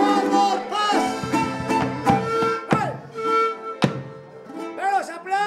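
Folk music with a melody that slides and bends between notes over steady sustained tones, and two sharp knocks a little past the middle.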